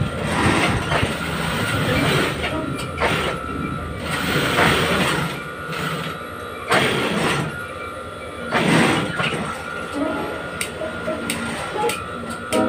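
Industrial sewing machine stitching in short irregular bursts, starting and stopping as the fabric is guided under the needle.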